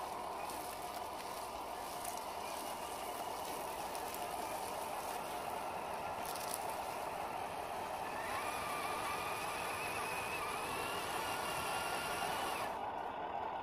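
1/10-scale RC crawler's 550 electric motor and gearbox whining with a rattly drivetrain as its wheels churn in sticky mud and leaf litter, the truck stuck. About eight seconds in a higher whine comes in under the load and stops suddenly near the end.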